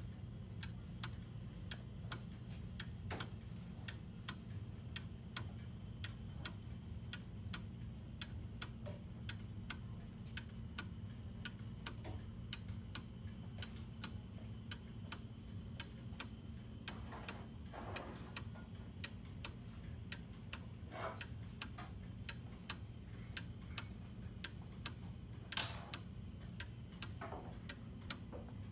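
Antique Black Forest cuckoo clock's weight-driven pendulum movement ticking steadily and evenly over a low hum, with a few faint rubs and one brief knock near the end.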